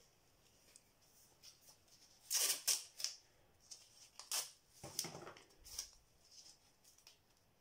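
Crisp crinkling and rustling handling noises in a few short clusters, about two to six seconds in, as gloved hands handle a strip of green masking tape.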